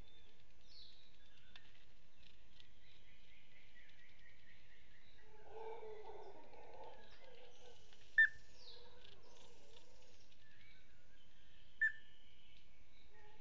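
Howler monkeys calling off in the forest, a low rumbling chorus that swells for about two seconds near the middle, over a background of forest bird calls. Two short, sharp bird notes stand out as the loudest sounds, a little after the monkeys and again about three and a half seconds later.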